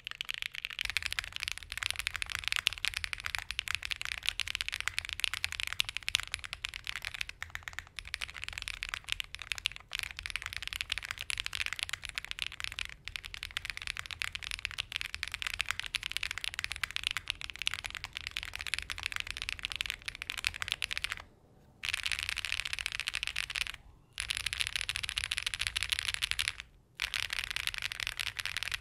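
Fast typing on a Space65 mechanical keyboard fitted with hand-lubed SOTC linear switches (JWK-made, POM housing, LY stem). It makes a dense stream of loud, high-pitched clacks, broken by three short pauses in the second half.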